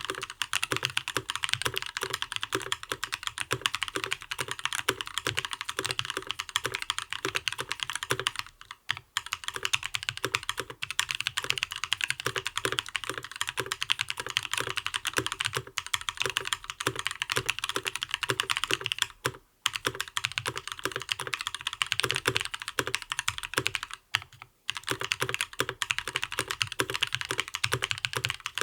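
Gentoo custom mechanical keyboard with lubed Gazzew Linear Thock linear switches, an aluminum plate and ePBT Soju PBT keycaps, typed on in a fast, continuous stream of keystrokes that stops only for three brief pauses.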